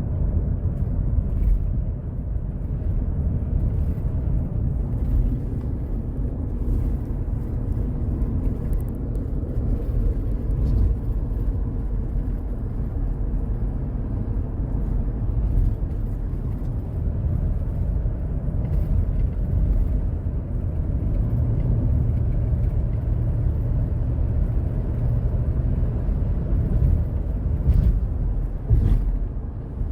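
Steady low engine and road rumble of a 2015 Chevrolet Tahoe's V8 under way, heard from inside the cabin.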